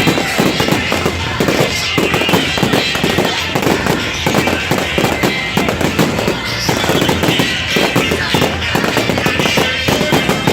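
Fireworks going off in rapid, dense volleys of bangs and crackles, with loud music playing throughout.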